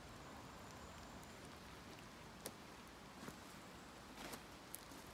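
Faint footsteps on gravel, a few scattered light crunches over a quiet, steady low background.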